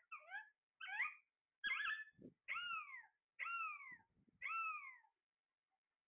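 Alexandrine parakeet calling: a few short, quick call notes, then three drawn-out calls about a second apart, each falling in pitch.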